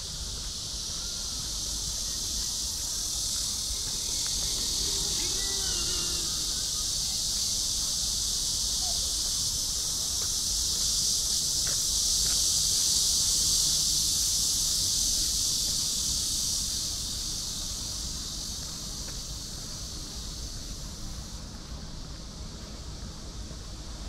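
A dense, steady, high-pitched insect chorus that swells to its loudest about halfway through and then fades, over a low background rumble.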